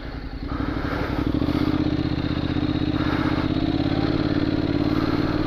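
Honda NC750X DCT's parallel-twin engine pulling away from a stop, growing louder over the first second or so and then running at a steady note as the bike rides on.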